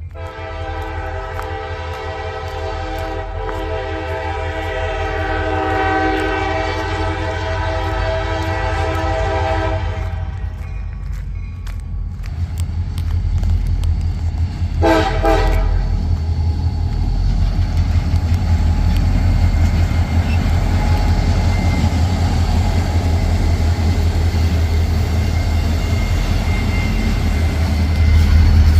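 Five-chime Nathan K5LA locomotive horn on a CSX GP40-2, sounded in one long blast of about ten seconds, then a short toot about five seconds later. After the horn, the low rumble of the EMD diesel locomotives approaching grows louder.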